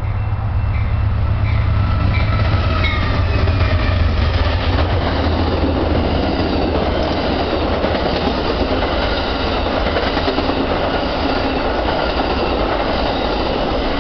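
Amtrak Southwest Chief passenger train passing close by. A low diesel locomotive rumble dominates the first few seconds, then gives way to the steady rush and rail clatter of the bilevel Superliner cars rolling past.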